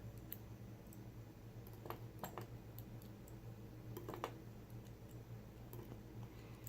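Faint, scattered light clicks of small pins from an ACE A527 padlock's pin-tumbler cylinder being set back into their chambers, the clearest about four seconds in.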